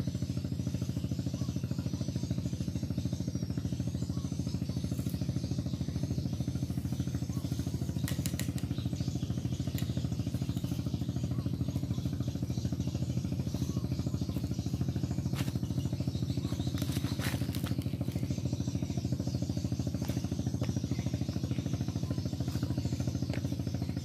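An engine running steadily at one speed, with a few light clicks.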